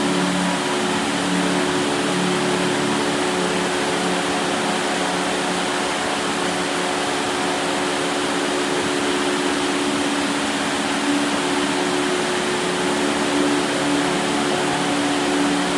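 Heavy rain falling on a corrugated metal roof, with water pouring off the eaves: a dense, steady hiss. A faint steady low hum runs beneath it.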